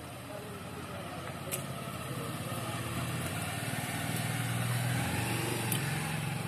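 Low, steady hum of a motor vehicle engine running, growing gradually louder through the middle and easing slightly near the end, with a couple of faint clicks.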